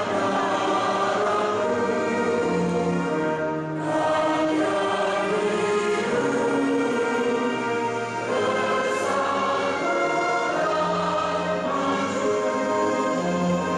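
Choir singing with orchestral accompaniment, in long held phrases that change about every four seconds.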